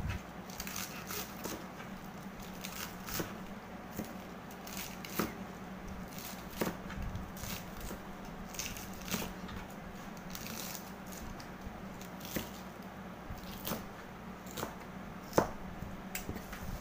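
Kitchen knife chopping cabbage on a plastic cutting board: irregular short cuts and taps of the blade, about one or two a second.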